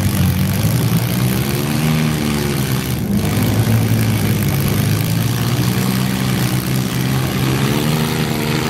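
Engines of several compact demolition derby cars running together, the pitch rising and falling as drivers rev between hits.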